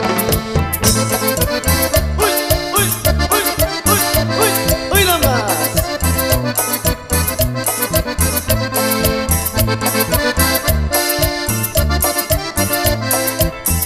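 Instrumental background music with a steady beat and a few gliding notes between about two and five seconds in.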